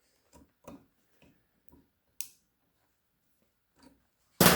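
Light, irregular metallic clicks of pliers working an E-clip off a sightglass fitting, with a sharper click about halfway and a louder clack near the end.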